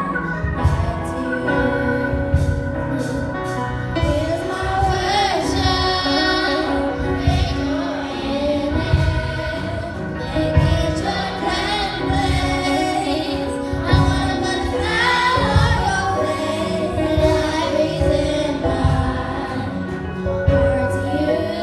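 A song with voices singing over accompaniment that has a steady beat.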